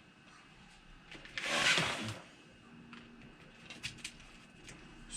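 Brief rustle of parts being handled, with a few faint light clicks later on.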